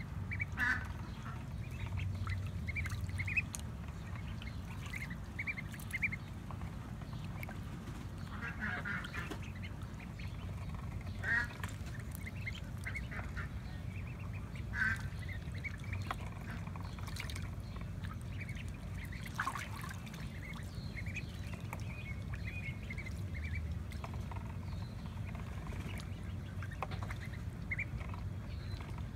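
Magpie ducklings giving short, high peeping calls in scattered runs, with a few louder calls, while they paddle and dabble in a tub of water.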